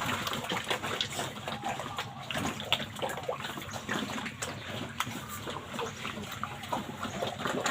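Pig eating wet feed: irregular slurping, smacking and sloshing.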